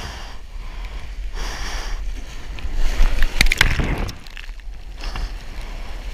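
Breaking whitewater rushing around a surfboard, with wind buffeting the microphone as a low rumble. About three seconds in the water grows louder and churns with sharp splashes as the rider falls into the foam, then it eases.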